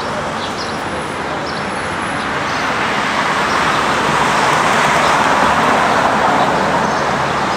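Road traffic: cars passing on a city street, a steady rush of tyres and engines that swells about halfway through and eases slightly near the end.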